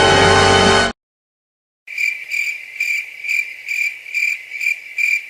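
Crickets chirping sound effect: a steady high chirp pulsing about twice a second, starting about two seconds in, after a piece of music cuts off abruptly and a second of silence.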